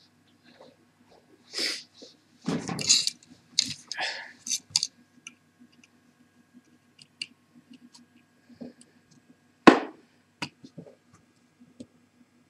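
Small metal tools, tweezers and a screwdriver, scraping and clicking against a laptop hard drive's platter stack and spindle clamp, in irregular taps and scrapes with one sharp click about ten seconds in.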